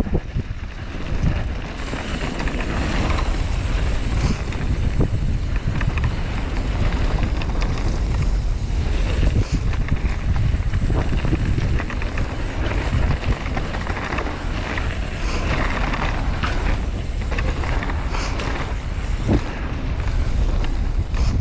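Wind buffeting the microphone of a camera on a mountain bike riding a dirt trail, with tyre rumble over the dirt and scattered knocks and rattles from the bike over bumps.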